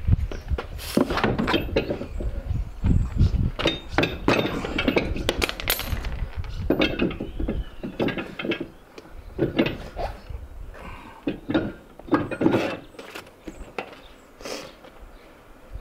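Irregular knocks and metallic clinks as a 35-inch mud-terrain spare tyre on its wheel is lifted and fitted onto a tire carrier's lug studs, with wind rumbling on the microphone.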